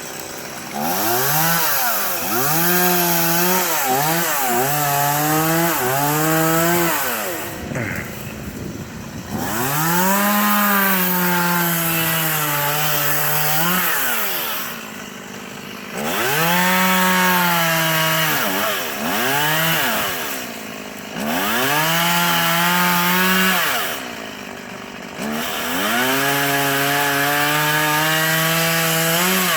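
Gas chainsaw cutting wood: the engine revs up to full speed and holds there through a cut, then drops back toward idle. This happens about five times.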